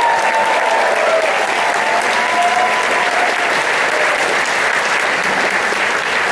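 Audience applauding and cheering, with a few long high calls from the crowd over the first three seconds.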